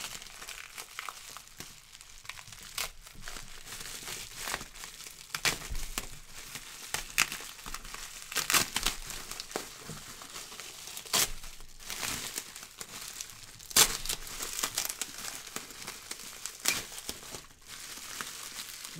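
Packaging crinkling and rustling as it is unwrapped by hand, with irregular sharp crackles throughout; the loudest comes about 14 seconds in.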